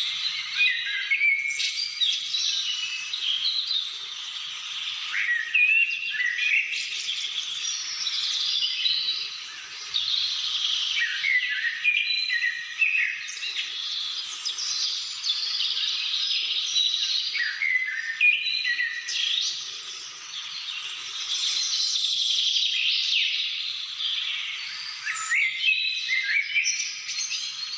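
A chorus of many birds singing and calling at once: quick chirps and short runs of falling notes overlap without a break, all fairly high-pitched.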